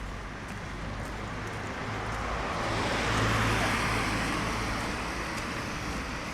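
A car passing by on a wet city street: its tyre hiss and engine rise to a peak about three seconds in and fade away, over a steady low traffic hum.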